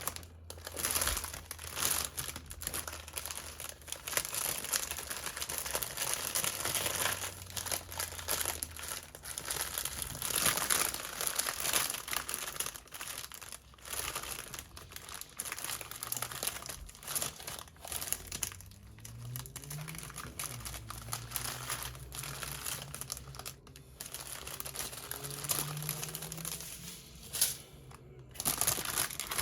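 Small plastic bags of diamond painting drills crinkling as they are handled and sorted, in continuous irregular rustles.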